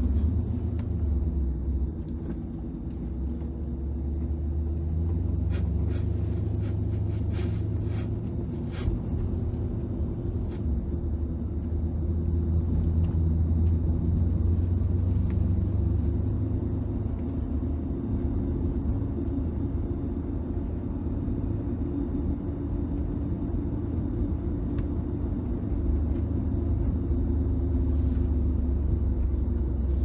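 6.1-litre HEMI V8 of a Dodge Challenger SRT-8 cruising at low revs in a high gear, heard from inside the cabin as a steady low rumble with road noise.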